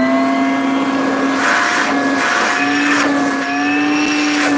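Makita 18V brushless 2-gallon wet/dry vac running at full power, a steady motor whine over a rush of air. The whine wavers briefly about halfway through, and the rush of air swells a few times.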